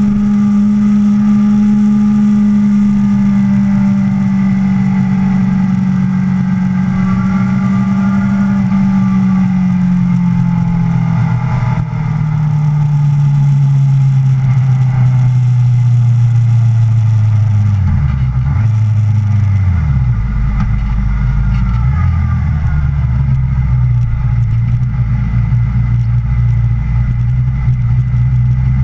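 Yamaha sport bike engine running at steady part throttle with wind rush, its note falling slowly as the bike slows. About two-thirds of the way through the revs drop sharply a couple of times, then the engine settles to a low, steady note as the bike rolls slowly.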